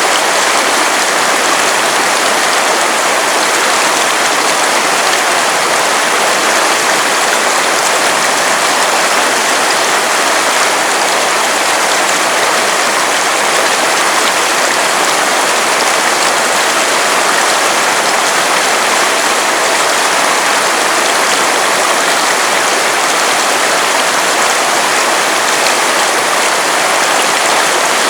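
River water rushing steadily over stones, a dense, even hiss with no let-up.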